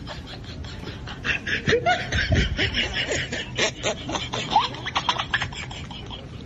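People laughing and snickering over a steady run of quick, sharp clicks and knocks.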